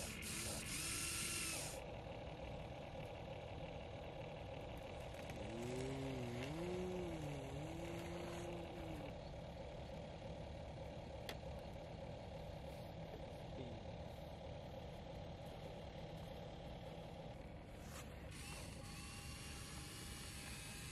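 Small electric gear motors of a Huina RC excavator whirring and grinding as it works, with a steady whine. A brief wavering tone about six seconds in.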